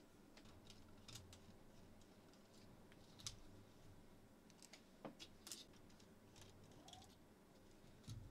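Faint, scattered small clicks and taps of a screwdriver and hands on the plastic fan shroud of a graphics card while the fan screws are backed out.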